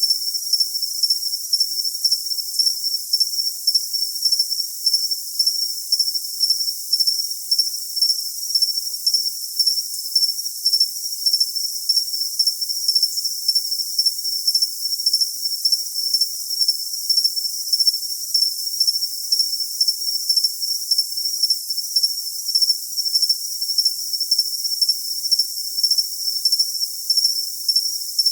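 Cricket chirping, a high-pitched trill pulsing in an even rhythm of about two chirps a second, with nothing of lower pitch beneath it.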